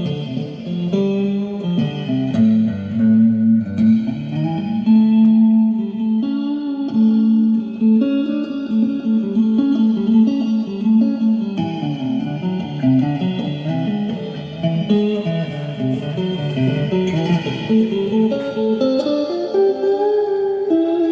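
Guitar played solo in a free improvisation, picking melodic lines of single notes that wander up and down, with some notes held and sustained.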